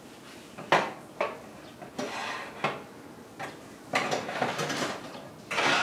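Metal clatter of a Cuisinart air-fryer toaster oven's wire basket and rack being pulled out through the open door: a series of sharp clanks and scrapes, the loudest under a second in, with a longer rattling stretch in the second half.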